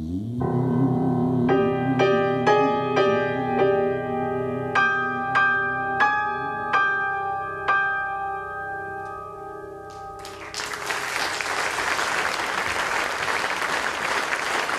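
Grand piano playing a slow closing phrase, single notes and chords struck about every half second, the last chord left to ring and fade. About ten seconds in, an audience breaks into applause.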